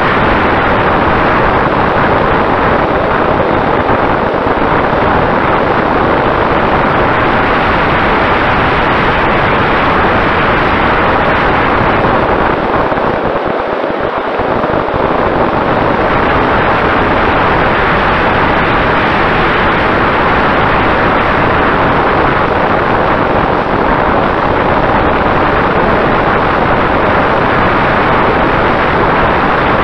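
Wind rushing over the onboard camera of a Mini Talon RC plane in flight, with the faint steady tone of its Sunnysky 2212 brushless motor and propeller underneath. The rush eases briefly about halfway through.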